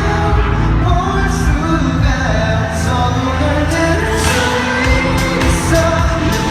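K-pop song performed live in concert: an amplified pop track with heavy bass, a steady beat and sung vocals.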